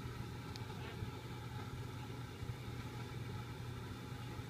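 A steady low hum under an even background hiss, with one faint high tick about half a second in.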